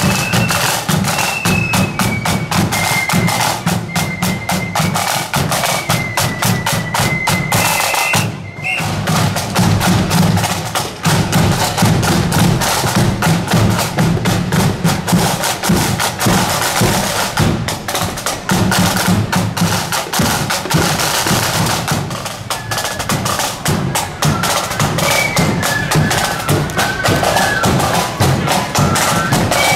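Marching flute band playing: snare and bass drums beating steadily under a high flute melody. The melody stops after a brief pause about a third of the way in, leaving the drums beating alone, and the flutes come back in near the end.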